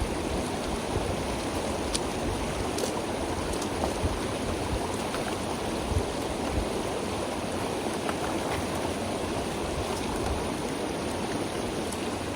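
Stream water running over rocks: a steady rushing sound with a few faint ticks.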